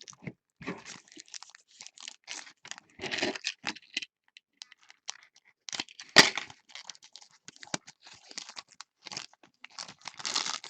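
Trading card packs being torn open and handled: crinkling and tearing of pack wrappers and cards rustling, with one sharp click about six seconds in.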